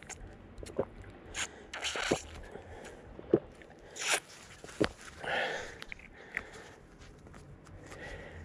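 Dry leaves crunching with scattered clicks, knocks and scrapes, and a short breathy rush about five seconds in; no engine is running.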